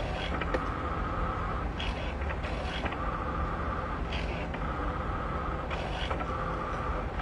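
Cricut Maker cutting machine running a foil transfer job: the carriage motors drive the foiling tip in repeated short moves. A steady hum underneath, with a held whine alternating with brief higher buzzing every second or so.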